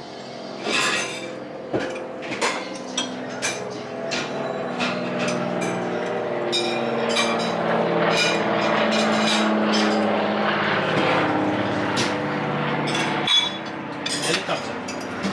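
Helicopter flying overhead, its drone growing louder to a peak in the middle and fading near the end. Forks click and clink on plates throughout.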